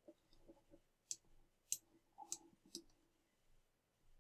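A few faint, sharp computer mouse clicks, about four, spaced roughly half a second apart.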